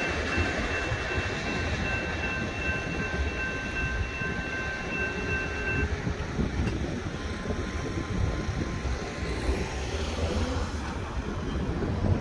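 A BNSF freight train rumbling as it moves away from a grade crossing, fading, with a steady high ringing tone that stops about halfway through. A low wind rumble on the microphone, and a car pulling across near the end.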